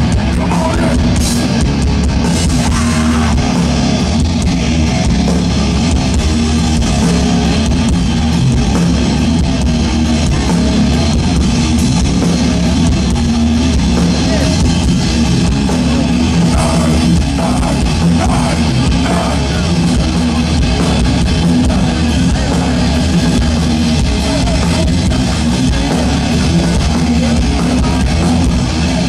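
Heavy metal band playing live: distorted electric guitars and a drum kit, loud and steady, heard from the audience.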